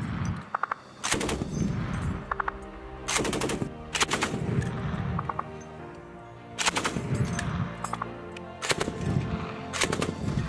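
NSV 'Utes' 12.7 mm heavy machine gun firing short bursts, several bursts a second or two apart. Background music plays underneath.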